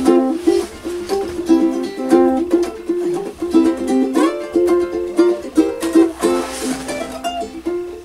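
Ukulele played fingerstyle in a quick, continuous triplet pattern of index finger and thumb, plucked notes ringing over changing chords.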